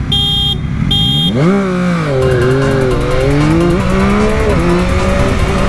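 Two short blasts of a motorcycle horn, then a motorcycle engine revs up about a second and a half in and keeps running, its pitch rising and falling with the throttle.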